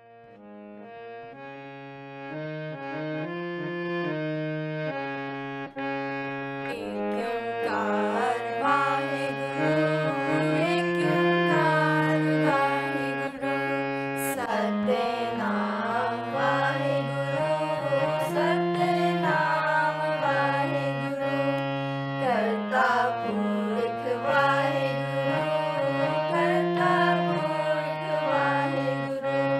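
Harmonium playing a slow devotional melody over a held drone, fading in over the first few seconds; a voice singing a Sikh hymn (kirtan) with gliding, ornamented lines comes in about seven seconds in.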